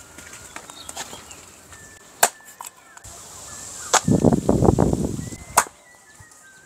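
Three sharp impacts, about a second and a half apart, with a short loud rattling clatter of many quick strokes between the second and third.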